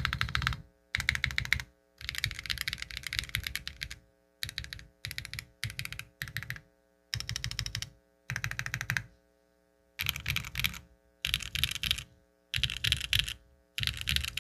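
Neo 65 mechanical keyboard with Duhuk Lumia Matcha V4 linear switches on a carbon fibre plate, typed on in quick bursts of keystrokes with short pauses between them.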